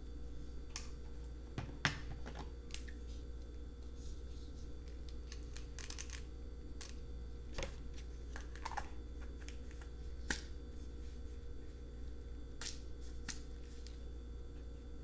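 Plastic pill bottles and pills handled with gloved hands while refilling a pill organizer: scattered small clicks and rattles as caps are twisted open and pills are sorted, with the sharpest clicks about two seconds and ten seconds in.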